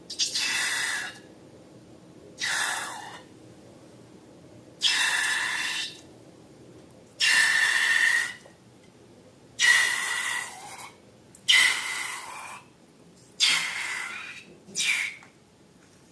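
Air hissing out of a balloon's neck in repeated short bursts, about eight, each carrying a faint whistling tone.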